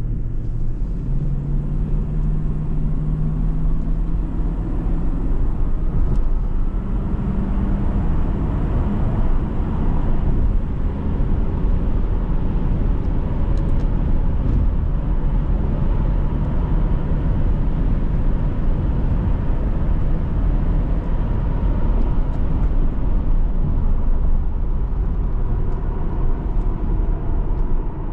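Supercharged Toyota Land Cruiser V8 engine and road noise while driving. The engine note climbs in pitch over the first several seconds as it accelerates, then settles into a steady cruise.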